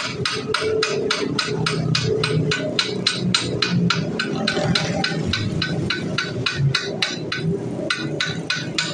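Hammer tapping repeatedly on a Kawasaki KLX 150 engine's crankcase, a fast even run of about four strikes a second with a brief pause near the end.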